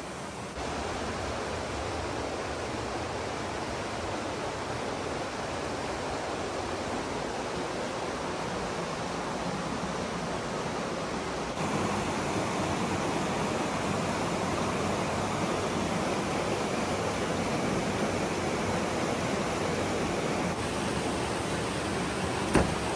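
Steady rush of running water, a little louder from about halfway, with one sharp click near the end.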